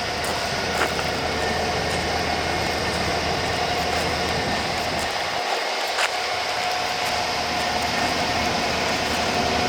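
A heavy vehicle running steadily: a constant mechanical noise with a held whine and a couple of light clicks.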